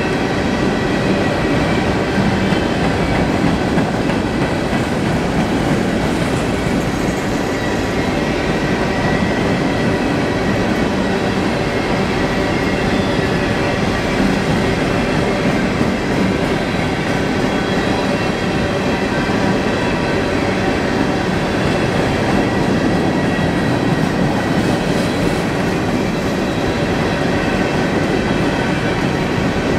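Coal hopper cars of a Norfolk Southern freight train rolling steadily past: a continuous rumble and clatter of steel wheels on the rails, with faint steady ringing tones over it.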